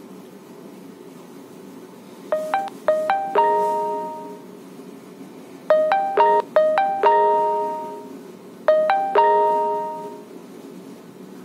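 A phone speaker plays a short melodic ringtone or notification tone three times: each time a quick run of a few notes ends on a held chord that fades over about a second, over a steady hiss.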